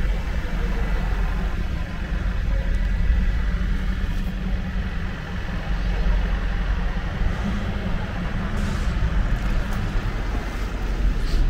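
Steady road traffic from cars and a bus on a town street: a constant low rumble with a fainter hiss of tyres and engines.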